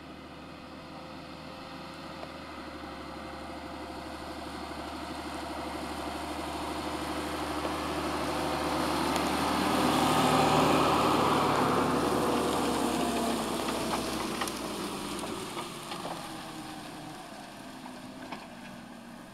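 Fendt tractor pulling a Kaweco slurry tanker with a trailed incorporation implement, its diesel engine running under load as it drives past: the sound grows steadily, is loudest about halfway through, then fades as it moves away.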